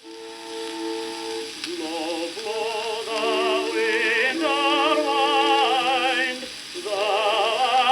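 An old 78 rpm record playing: held instrumental notes, then a soprano singing with wide vibrato in an old-style art-song manner, dipping briefly between phrases near the end.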